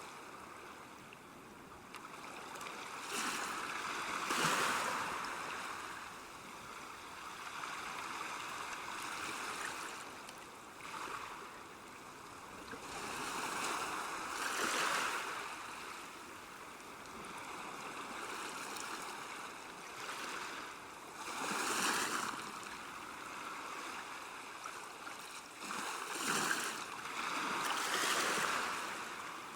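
River water at a bank: a steady wash of moving water that swells louder in surges every few seconds.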